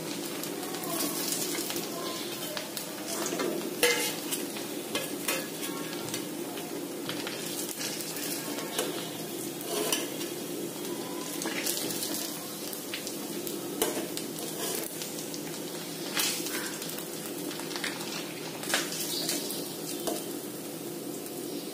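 Rice cutlets sizzling in hot oil in a metal kadhai, with scattered clinks and scrapes of a perforated metal skimmer against the pan and plate as the fried cutlets are lifted out.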